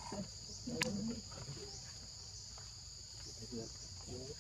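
Steady high-pitched drone of an insect chorus. About a second in there is a short vocal sound with a sharp click, then only the insects.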